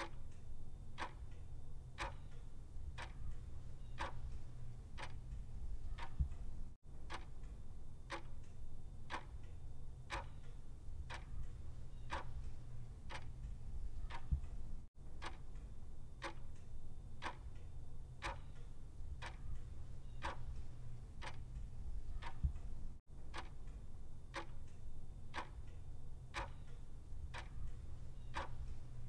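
Clock ticking in a steady tick-tock, about two ticks a second, over a low steady hum. The sound cuts out for an instant about every eight seconds.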